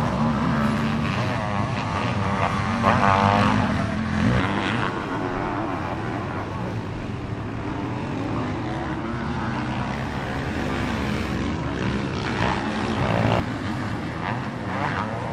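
Sidecar motocross outfits' engines racing, revving up and down as they ride the dirt track, with several machines heard at once; loudest about three seconds in.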